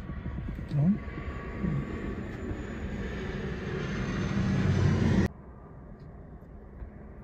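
A De Havilland Canada Dash 8-400 turboprop airliner passes low overhead on approach with its gear down. Its propeller and engine drone builds steadily to a peak, then cuts off abruptly a little over five seconds in, leaving a faint background hum.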